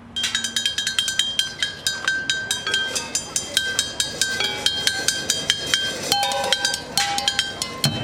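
Street drumming with sticks on an improvised kit of found objects: a fast, steady rhythm of sharp strikes, several a second, with bright clinking, ringing metal tones from pans or lids among the hits.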